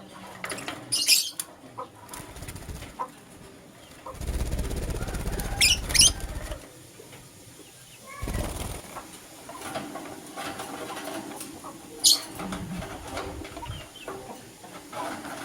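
Lutino lovebirds chirping: short, sharp, high calls about a second in, around six seconds and again near twelve seconds. In between are bursts of low rustling noise, loudest around four to six seconds in.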